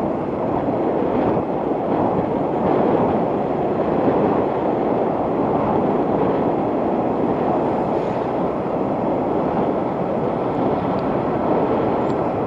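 Steady wind noise rushing over the microphone of a motorcycle moving at road speed, with the bike's engine and road noise underneath.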